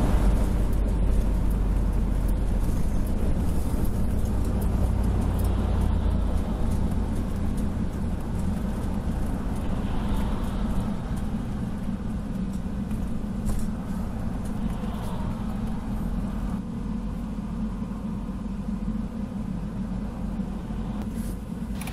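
Motorhome's engine and road noise heard from inside the cab, a low rumble that fades gradually as it slows along the highway shoulder to a stop.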